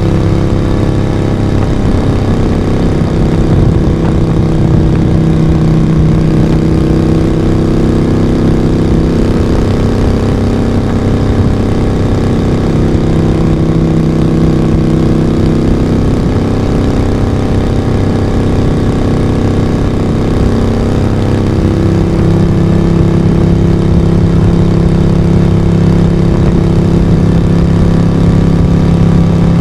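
1982 Moto Guzzi V35's small V-twin running under way at fairly steady cruising revs, the exhaust note loud and even. Around the middle the pitch drops and wavers briefly, then it holds steady again in the last third.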